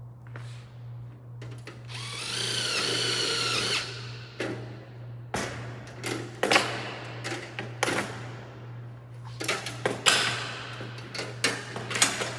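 Power drill or screw gun whirring for about two seconds as it spins up and drives a screw into light-gauge steel stud framing, followed by a run of sharp knocks and clanks as the steel pieces are handled and fitted together.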